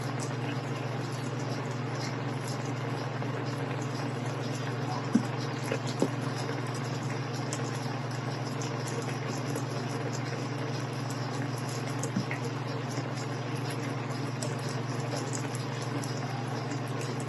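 Thick creamy chicken sauce simmering in a pan, bubbling steadily, with a few louder pops about five and six seconds in, over a steady low hum.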